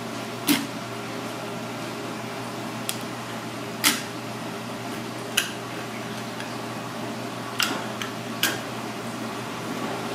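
Knife blade knocking sharply on a plastic cutting board several times, a second or two apart, while a red cornetfish is skinned and filleted, over a steady fan-like hum.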